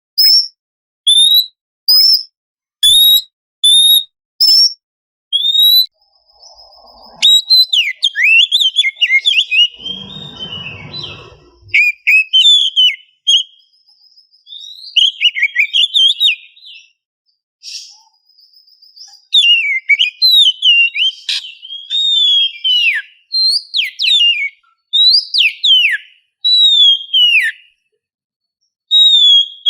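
Oriental magpie-robin singing: first a string of short, evenly spaced whistled notes, then a loud, fast, varied song of sweeping, chattering phrases with short pauses between them. A brief low rustle sounds about ten seconds in.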